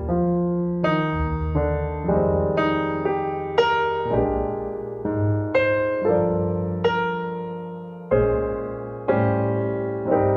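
Background music: a slow, gentle piano piece, with notes and chords struck one after another, each dying away.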